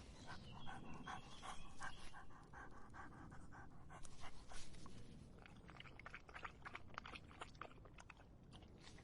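Dog lapping water in a quick steady rhythm of about three to four laps a second, pausing around the middle and then lapping again more unevenly.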